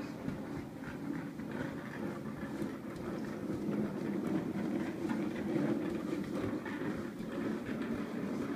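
Small plastic wheels of a toddler's ride-on toy rolling across a hardwood floor, a steady low rumble with small knocks.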